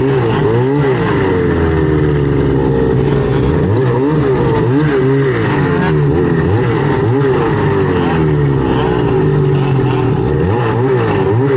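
Snowmobile engine running under throttle, its pitch rising and falling again and again as the throttle is worked, over a steady low drone.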